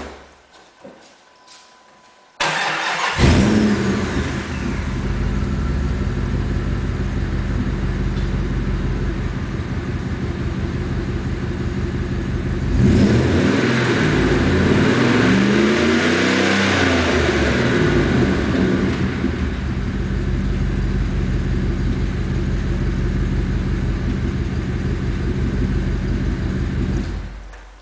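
A short knock, then a Jeep Grand Cherokee's 5.9-litre (360 ci) V8 is started through its Magnaflow muffler and idles steadily. About halfway through it is revved up and down several times. It settles back to idle and is switched off near the end.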